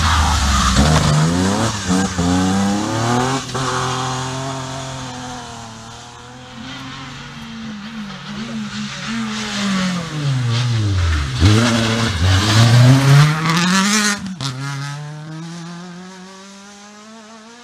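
Rally car engines passing through a bend on a closed special stage, one after another, each revving up and down through gear changes. The louder pass near the middle drops low and then revs hard as the car pulls away, and a steady engine note fades near the end.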